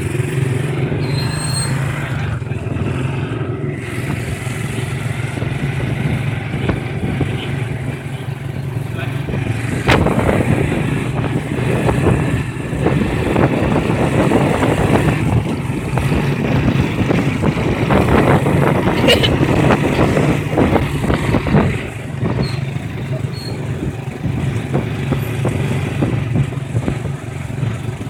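Small Honda underbone motorcycles with single-cylinder four-stroke engines running along the road, their engines droning steadily. The sound gets louder and rougher from about ten seconds in to about twenty-two seconds in.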